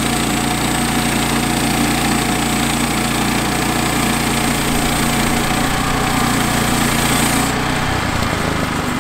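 Woodland Mills HM122 portable bandsaw mill running steadily, its small gas engine driving the band blade through a cedar log. About seven and a half seconds in the higher hiss drops away, and the engine note shifts soon after.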